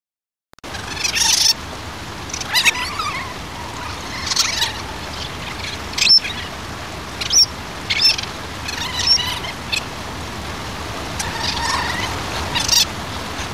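Short high-pitched animal calls, some gliding in pitch, repeated about nine times at irregular intervals over a steady outdoor background hiss that starts about half a second in.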